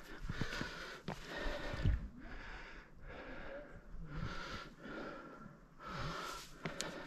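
A climber breathing hard while scrambling up rock, a loud breath about every second, with a few light knocks.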